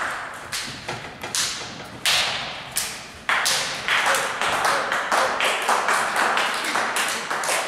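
Rapid sharp claps and slapping impacts, about four a second, with sudden louder cracks about two and three seconds in.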